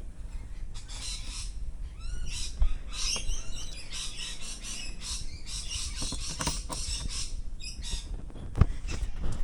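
Birds chirping and calling, with quick repeated notes and short gliding calls. Two dull thumps, one about two and a half seconds in and a louder one near the end.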